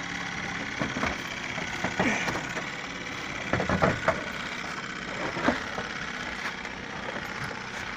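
Van engine idling steadily, with a few knocks and rustles of gear handled close to the microphone.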